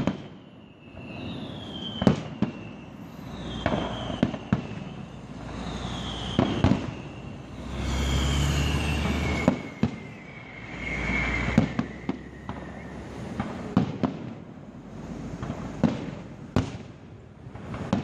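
Fireworks display: repeated sharp bangs of bursting shells, with several whistles that fall in pitch. About halfway through comes a longer low rumbling stretch.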